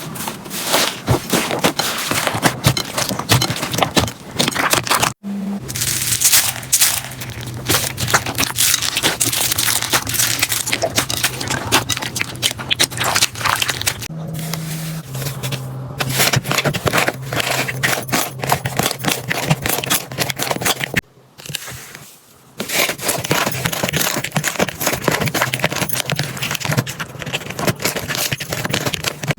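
Slime being squeezed and worked by hand: dense, irregular crackling and popping. It breaks off suddenly about five seconds in and again about three-quarters through.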